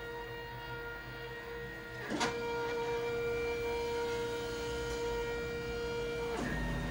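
NEMA 17 stepper motors of a CNC hot wire foam cutter driving the axes on Acme lead screws during a cut, giving a steady whine of several held tones. The pitch drops in a short sweep about two seconds in and settles on new tones, then changes again near the end as the speed and direction of the move change.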